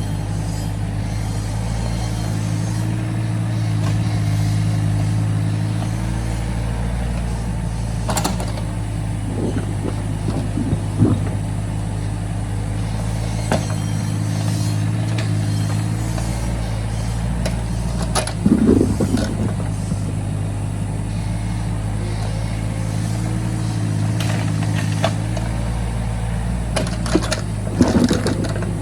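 Excavator's diesel engine running steadily, its low hum shifting a little in level as the machine works, with occasional short sharp knocks.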